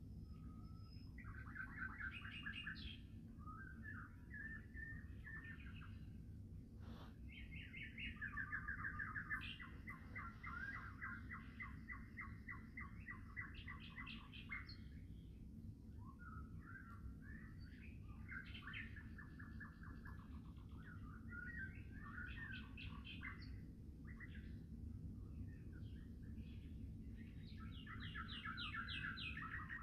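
A songbird sings long, rapid chattering phrases of quickly repeated notes with short pauses between them, over a low steady rumble.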